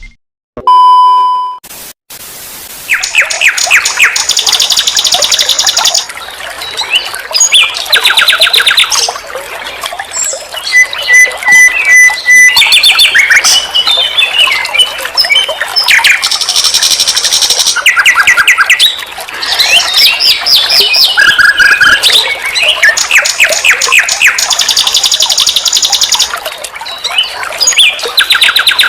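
Nightingale singing loud, varied phrases of rapid repeated notes, trills and clear whistles, with short pauses between phrases. A short electronic beep sounds about a second in, before the song starts.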